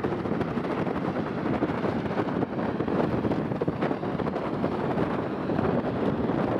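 Steady rushing noise of wind on the microphone, over the rumble of jet airliners taxiing.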